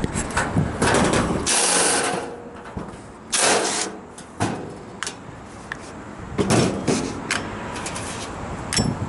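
Hand-tool and metal handling noises from work on a refrigeration compressor unit: scattered clicks and knocks with a few short rasping bursts.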